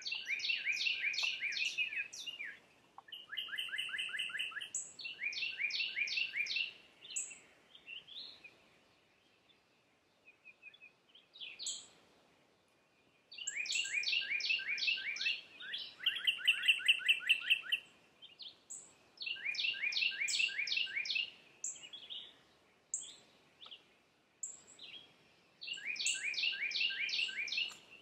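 A songbird singing phrases of rapid, down-slurred whistled notes, each phrase about two seconds long and repeated every few seconds, with some higher chirps between phrases.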